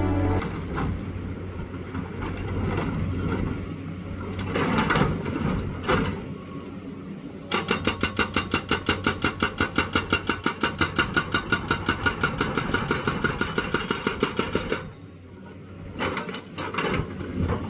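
Tracked excavator with a hydraulic rock breaker. The diesel engine runs under a few knocks, then the breaker hammers rock in a fast, even run of blows, several a second, from about seven and a half seconds in for about seven seconds. It stops suddenly, and a few more knocks follow near the end.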